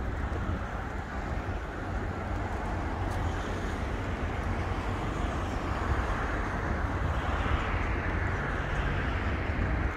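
Steady road traffic noise that swells about halfway in as a vehicle passes, over a low rumble of wind on the microphone.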